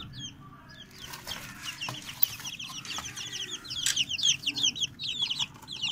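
Several young chicks peeping: a constant chorus of rapid, high, downward-sliding chirps. A few sharp clicks come through the middle.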